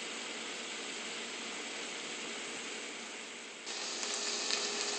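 Red wine sizzling in a hot pot of browned ground beef and onions as it deglazes the bottom: a steady hiss. About three and a half seconds in it cuts abruptly to a slightly louder, steady sizzle with a faint hum under it.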